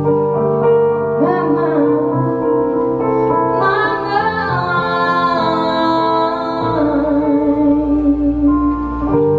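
Electric piano playing sustained chords while a woman sings a drawn-out, gliding vocal line over them.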